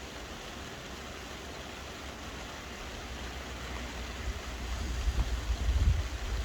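Steady hiss of soft rain falling. From about halfway through, a low, uneven rumble builds and grows louder toward the end, like gusts of wind buffeting the microphone.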